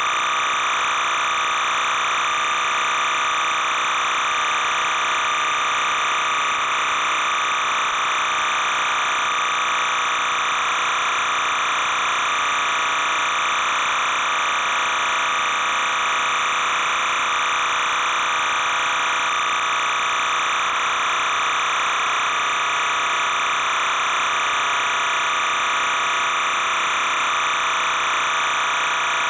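Steady electronic buzz and hiss that never changes in level, with no game sound, crowd or commentary.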